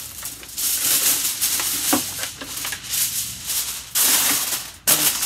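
Aluminium foil crinkling loudly as a sheet is pulled over a disposable aluminium pan and crimped down around its edges.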